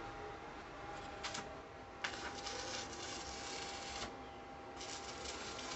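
Stick (arc) welding on a sheet-metal lid: the electrode arc crackles and sizzles for about two seconds, stops briefly, then strikes and crackles again near the end.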